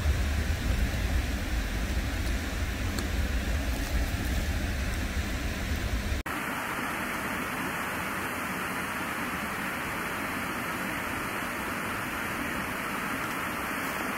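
Wind noise on the microphone: a steady rush over a gusty low rumble, which cuts off sharply about six seconds in and gives way to an even, thinner hiss.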